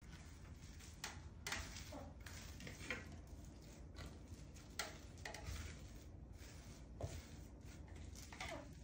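Faint, soft scrapes and brushes, a few seconds apart, from wet silk plaster being pressed and smoothed onto a wall by hand, over a low steady room hum.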